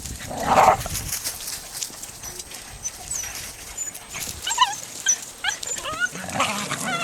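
Norrbottenspets puppies whining and yelping: a louder cry about half a second in, then a quick run of short, high, wavering squeals from about four seconds in.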